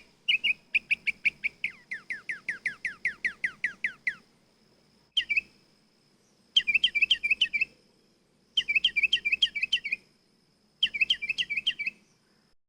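A songbird singing: a fast run of quick, down-slurred notes lasting about four seconds, then a single chirp and three short bursts of rapid chirps.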